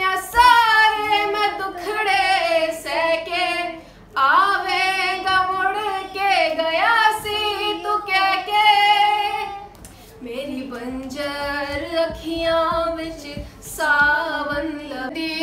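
A girl's high voice singing a slow song with long held, wavering notes, accompanied by acoustic guitar, with two short breaths between phrases about four and ten seconds in.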